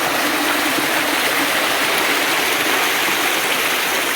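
Stream water rushing close by, a steady loud rush with no breaks.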